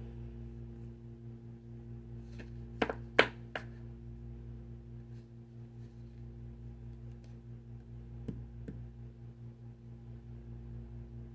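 Low, steady electrical hum with a few short, light clicks or taps: four close together about three seconds in and two fainter ones after about eight seconds.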